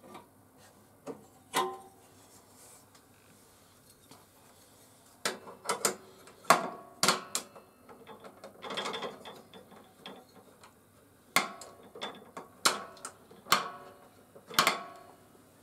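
Blade guard and anti-kickback pawls of a HiKOKI C3610DRJ table saw being fitted by hand onto the riving knife: irregular clicks, knocks and rattles of plastic and metal, coming in bunches, with a quiet stretch about two to five seconds in.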